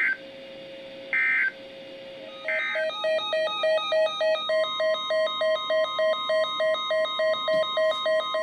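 Emergency Alert System data tones: three short warbling digital bursts about a second apart, the end-of-message code closing the previous alert. About two and a half seconds in, a rapid electronic beeping starts at three to four beeps a second. About two seconds later a steady alarm tone near 1 kHz joins it. Together they open the next weather-radio alert.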